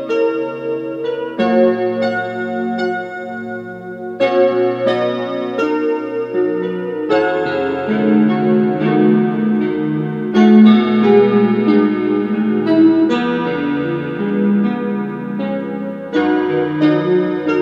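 Solo piano music at a slow pace, with new chords struck every few seconds and single melody notes between them.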